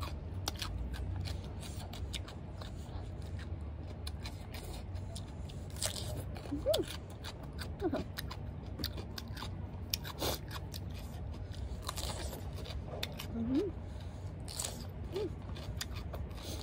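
Close-up chewing of raw radish and lettuce: irregular crisp crunches and wet mouth sounds throughout.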